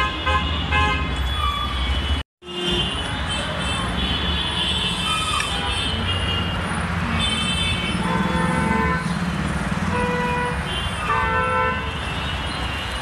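Road traffic with a steady engine rumble and frequent short car horn honks, some overlapping. The sound cuts out for a moment about two seconds in.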